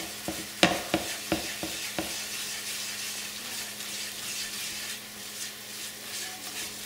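Butter and flour sizzling in a nonstick frying pan as a roux browns, stirred and scraped with a spatula. There are a few sharp scrapes and taps of the spatula in the first two seconds, then a steady sizzle.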